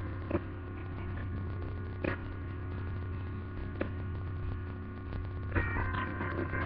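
Steady electrical mains hum picked up by the recording, with a few faint clicks spaced a second or two apart.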